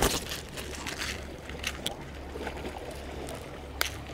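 Steady low rumble of wind and sea swell at a rocky shoreline, with a few light clicks as small plastic fishing tackle and a tackle case are handled.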